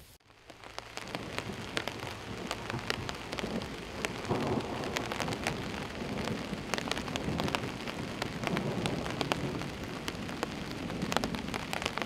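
Steady rain, with many separate drops striking close by. It starts suddenly and builds over the first second or two.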